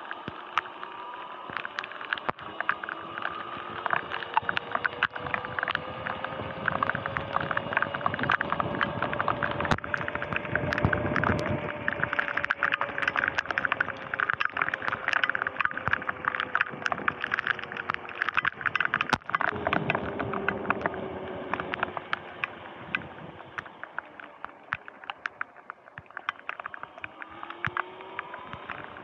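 Sur-Ron X electric dirt bike's motor whining as it rides, rising in pitch as it speeds up from about four seconds in and sinking as it slows, with a low rumble of tyres on wet pavement swelling midway. Many sharp ticks run throughout, raindrops striking the camera.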